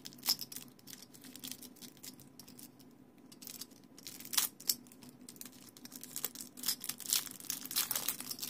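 Clear plastic wrapping taped around a small coin capsule crinkling and tearing as it is slit with a pocketknife and peeled off by hand, in scattered crackles and clicks that bunch up about halfway through and again near the end.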